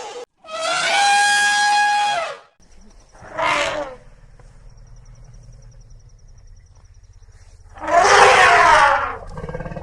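Elephant trumpeting: three separate calls. The first is long and brassy at a steady pitch, the second short, and the third, near the end, harsher and rasping, with a low hum between the calls.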